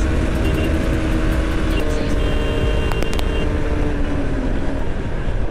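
Bajaj Pulsar RS200's single-cylinder engine running at road speed, heard under heavy wind noise on the rider's microphone; the engine note sinks slightly near the end as the throttle eases.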